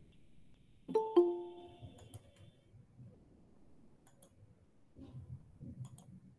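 A short two-note electronic notification chime about a second in, the second note lower and both fading quickly. It is followed by a few pairs of soft clicks.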